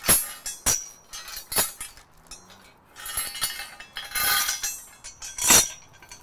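Grade 70 steel logging chain clinking and rattling as it is pulled through the steel handle of a tree-puller. It comes as a string of separate clanks and short rattles, the loudest shortly before the end.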